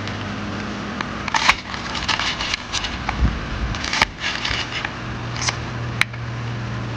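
Kitchen knife cutting through crisp deep-fried tofu on a cutting board: short scattered crunches and clicks as the blade breaks the crust and meets the board, over a steady low hum.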